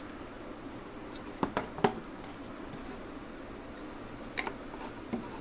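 Folding knives handled side by side: a few light clicks and taps, three in quick succession about a second and a half in and two fainter ones near the end, over a low steady room hum.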